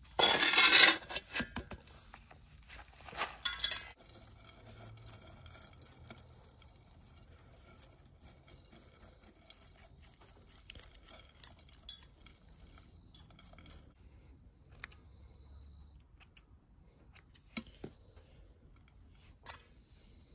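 A soft plastic nursery pot crinkling as it is squeezed to free the plant, twice in the first four seconds, the first the loudest. Then quiet scratching with scattered small clicks as metal tweezers tease soil and grit from the root ball and bits of gravel drop onto a metal tray.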